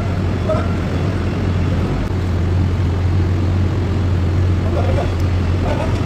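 Heavy-equipment engine running steadily with a constant low hum, with faint voices briefly near the start and about five seconds in.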